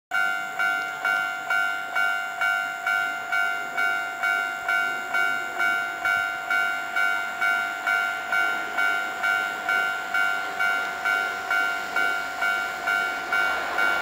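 Japanese level-crossing warning bell ringing steadily, about two strokes a second, each stroke fading before the next. Near the end the running noise of the approaching Hankyu 9300 series train rises underneath.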